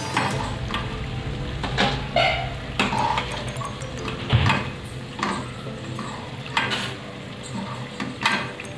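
Steel ladle clinking and scraping against a kadhai at irregular intervals while pakoras are lifted out of hot oil, with the frying oil sizzling underneath.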